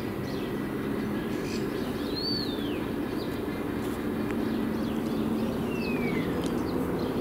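Birds calling over a steady low hum: one whistle rises and falls about two seconds in, and a shorter falling whistle comes near the end, with a few faint chirps between.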